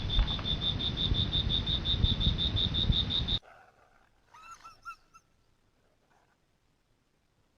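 Animal calling: a high chirping call pulsing about six or seven times a second over a loud rushing noise, cutting off suddenly a little over three seconds in. It is followed by a few faint, short rising-and-falling calls.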